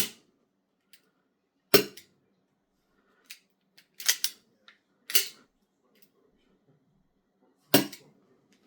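Gas airsoft pistol, a Raven R9-4 Beretta M9A4 replica, firing: two loud, sharp shots about six seconds apart, with quieter metallic clicks and clacks of the gun's action in between.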